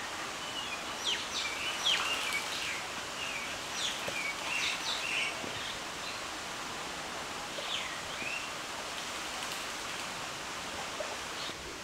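Birds chirping in short, high calls, busiest in the first half and a few more later, over a steady background hiss.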